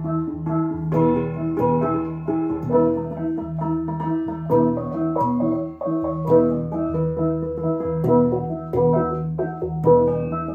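Central Highlands cồng chiêng gong ensemble playing: many tuned bronze gongs struck in quick succession, their pitched tones ringing and overlapping in a repeating pattern.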